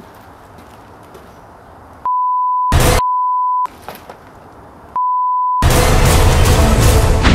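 Quiet room noise with a few faint clicks, then an electronic beep of one steady pitch sounds three times, each about half a second long, with a short, loud noisy burst between the first two. About three-quarters of the way through, loud music cuts in.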